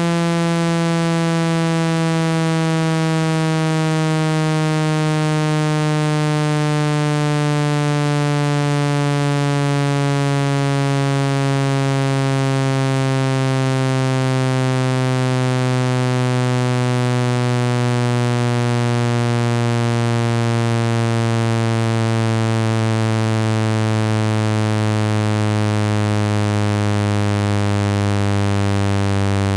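Synthesized water-ejection tone for clearing water out of a wet phone speaker: a steady, buzzy low tone rich in overtones, its pitch sliding slowly and evenly downward.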